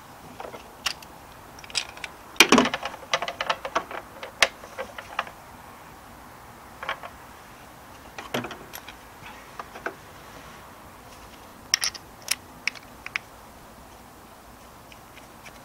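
Scattered clicks and small clattering knocks of hard plastic parts being handled: a brake pressure bleed kit's bottle and its reservoir cap adapter and hose fittings. There is a busy cluster a couple of seconds in and a few sharper clicks again near the end.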